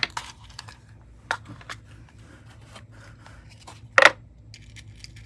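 Small clear plastic case of extra long ballpoint pins handled and opened: scattered light clicks and taps of the plastic case and lid, with a sharp, louder clicking snap about four seconds in.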